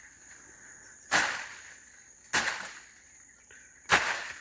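Bee smoker's bellows squeezed three times, each puff a short hiss of air that fades out, about a second and a half apart.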